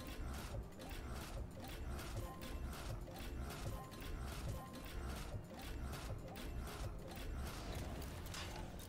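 Online slot game sound effects during a bonus round: an even mechanical clacking, about two clacks a second, over a low rumbling bed, with a few short beeps. A brighter hit comes near the end as the total-win banner appears.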